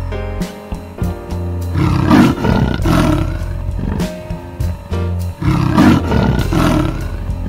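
A big cat gives two runs of rough, grunting roars, about two seconds in and again from about five and a half seconds, over steady background music.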